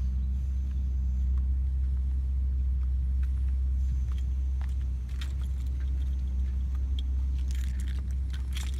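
Car on the move: a steady low rumble of engine and road, with scattered light clicks and rattles that grow busier near the end.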